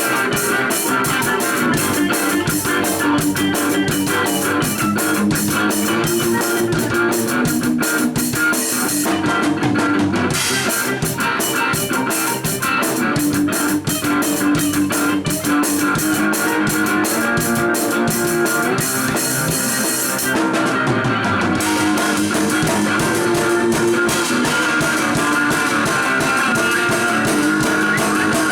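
Music with guitar and a drum kit playing a steady beat, with brief breaks in the cymbals twice.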